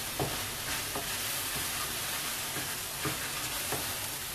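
Seafood and vegetables in sauce sizzling steadily in a frying pan on a gas hob while being stirred with a wooden spatula, with a few light knocks of the spatula against the pan.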